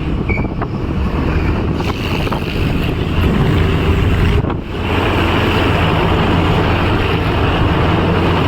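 Wind buffeting the microphone over a vehicle engine's steady hum while travelling on the road.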